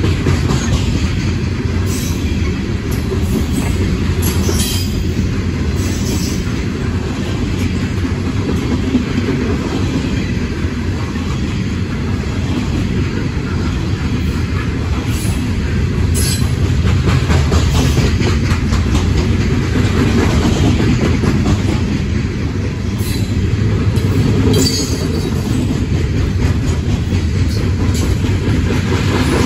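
Empty CSX rotary-end coal hopper cars rolling past, a steady rumble of wheels on rail with clickety-clack over the joints and a few brief high-pitched wheel squeals.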